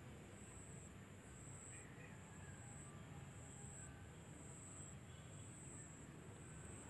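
Faint insect chirping: a high-pitched trill that repeats evenly about once a second, over a low steady background rumble.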